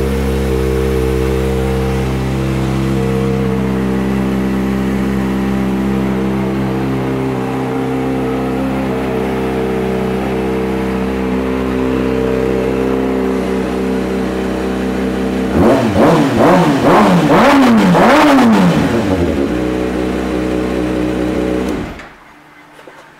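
2014 Kawasaki Ninja ZX-6R 636's inline-four engine with a Two Brothers Silver Series exhaust, idling steadily. About two-thirds of the way through it is blipped through several quick revs, settles back to idle, and is switched off with the key near the end.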